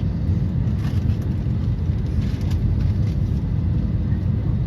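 Steady low rumble of an Airbus A320neo's cabin at the gate before pushback, the background noise of the aircraft's air supply, with a few faint knocks.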